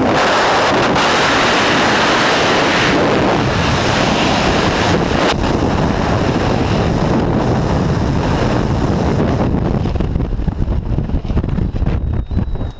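Loud, steady rush of freefall wind buffeting a helmet camera's microphone. About ten seconds in it eases and turns gusty as the parachute opens and the fall slows.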